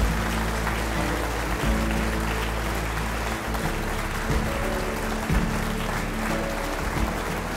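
Music with sustained notes over an audience applauding.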